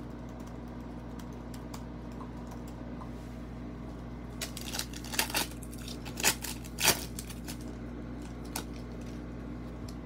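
Foil wrapper of a Panini Prizm basketball card pack being torn open and crinkled: a run of short crackly rips about halfway through, two more a second or two later, then a faint rustle of the cards being handled.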